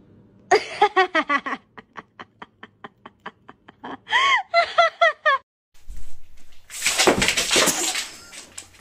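A person laughing: quick repeated bursts of giggling that trail off into short regular pulses, then pick up again. Near the end a louder stretch of noise follows.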